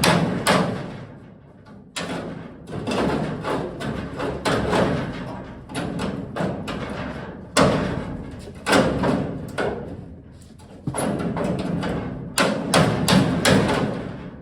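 Irregular loud metal bangs, thumps and scraping as a cut sheet-steel pickup bed floor section is shoved and knocked to free it where it is still hung up.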